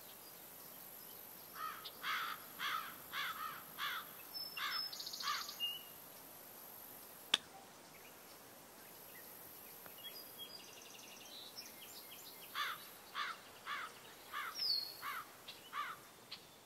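A bird calling outdoors in runs of short repeated notes, about two a second, with a few higher chirps between; the two runs come several seconds apart. A single sharp click sounds about seven seconds in.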